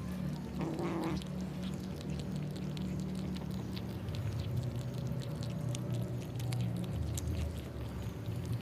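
Kittens chewing raw chicken heads: many sharp crunches and clicks of bone, over a continuous low growl, with a short cry about a second in.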